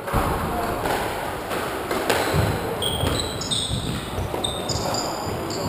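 Squash rally: sharp knocks of the ball off rackets and the walls, several in the first two seconds. Dull footfalls follow, then short high squeaks of shoes on the wooden court floor in the second half.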